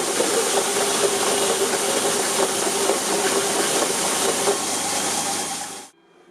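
A workshop power tool or machine running steadily with a loud, even hissing noise, switched off and winding down quickly near the end.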